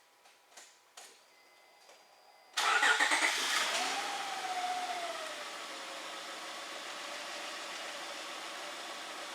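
A few faint clicks, then the Honda Odyssey's 3.5-litre V6 starts about two and a half seconds in, flares up briefly and settles to a steady idle.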